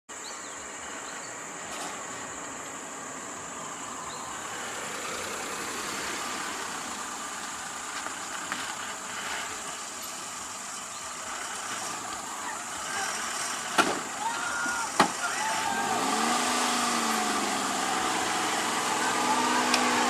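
A stopped bus idling with a steady hum and a constant high hiss. There are two sharp knocks a little past the middle, then people's voices near the end.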